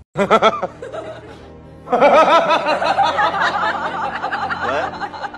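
Music with laughter over it: a few quick giggles right at the start, then from about two seconds in a longer stretch of laughing.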